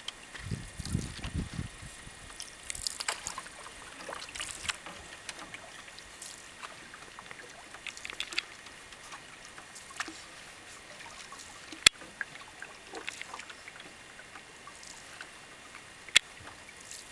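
Canoe paddle strokes dipping and pulling through lake water, with irregular small splashes and drips every second or two. Two sharp clicks, the loudest sounds, come about two thirds of the way through and near the end, and a brief low rumble comes about a second in.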